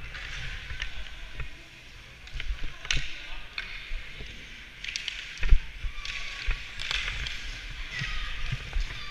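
Ice skate blades scraping and carving on a hockey rink, with sharp clicks of sticks and puck and a loud thump about five and a half seconds in. Faint distant voices of young players are heard near the end.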